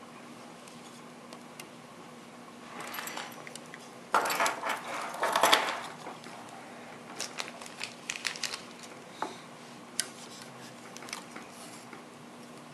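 Hands handling small parts on a carbon-fibre multirotor frame while fitting rubber isolation washers around the gimbal's mounting bushings. A stretch of rustling comes about three to six seconds in, followed by scattered light clicks and taps.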